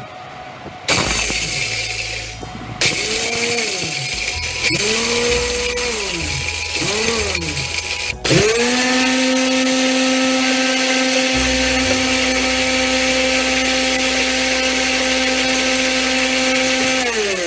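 Homemade mixer grinder's electric motor run in several short pulses, its pitch rising and falling with each, then held on steadily for about nine seconds and winding down near the end. Over the motor is a loud noisy grind as a dry load is crushed in the steel bowl.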